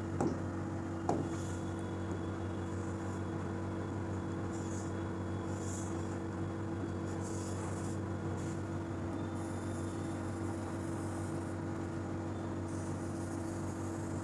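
Stylus tapping twice on a digital whiteboard's colour menu near the start, then faint scratchy strokes as it draws on the screen, over a steady electrical hum.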